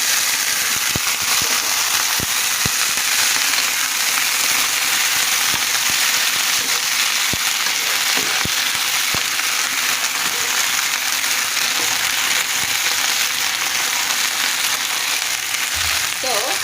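Carrots and green beans sautéing in hot oil in a pan: a steady sizzle with scattered crackling pops.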